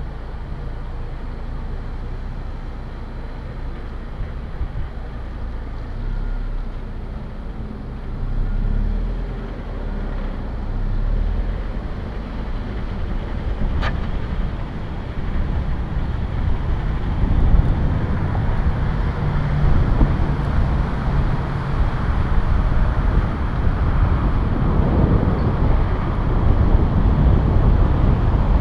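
Steady low rumble of vehicle and road traffic, growing louder and rougher over the second half, with a single sharp click about fourteen seconds in.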